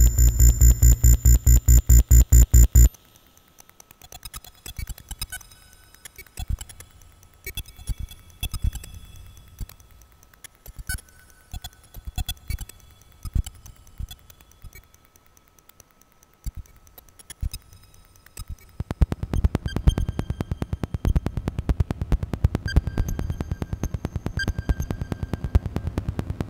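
Generative electronic sound computed live from a Mandelbox fractal algorithm, with no samples or conventional synthesis. A loud, fast low pulsing stops suddenly about three seconds in and gives way to sparse scattered clicks and short high tones. About nineteen seconds in, a dense, rapid stream of clicks over a low rumble takes over.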